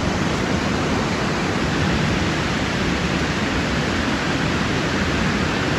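Steady rush of water running down a steep gully stream.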